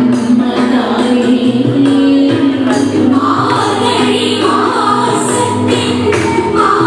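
Thiruvathira song: voices singing a melody with accompaniment, with hand claps keeping the beat.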